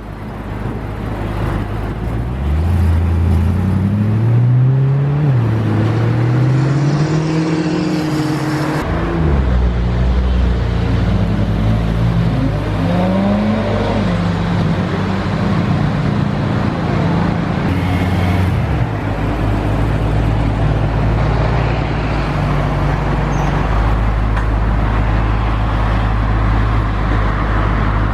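Car engines revving as cars pull away, the pitch rising and falling several times over the first half. The engine sound then settles into a steadier low rumble.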